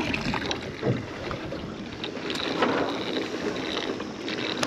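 Small fishing boat on the water in wind: wind buffeting the microphone, with scattered light knocks and rustles on the boat.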